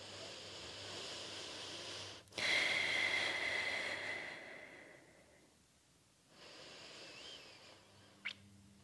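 A woman's slow, audible breathing while she holds a strength pose: a soft breath, then a louder one of about two seconds that fades out, then a fainter breath, with a small click near the end.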